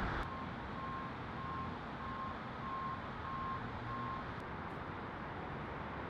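Vehicle backup alarm beeping seven times, about one beep every 0.6 s, stopping about four seconds in, over a steady low rumble of outdoor background noise.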